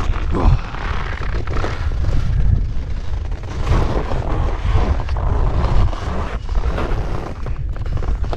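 Wind buffeting the microphone, with ski edges scraping and chattering on hard, wind-scoured snow and rock as the skier sidesteps down a steep slope.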